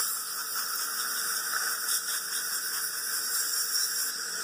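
Dental saliva ejector hissing steadily as it sucks water and air from the mouth while etch rinse water is cleared from the teeth.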